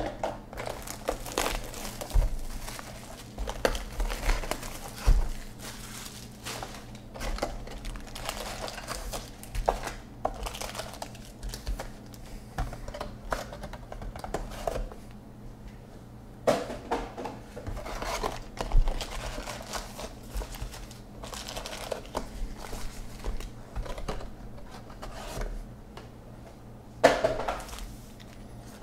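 Trading card packs' wrappers crinkling and cardboard hobby boxes rustling and tearing as boxes are opened and the packs are handled and stacked, in irregular bursts. One louder crackle comes near the end.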